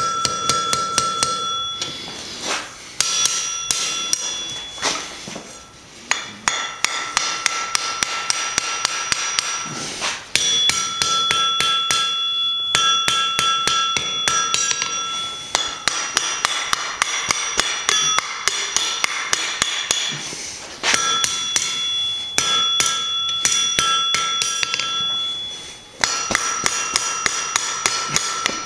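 Small ball-peen hammer striking the red-hot end of a steel bar on an anvil in runs of quick blows, several a second, broken by short pauses, with the anvil ringing. The rapid light blows are upsetting the bar end, fattening it up.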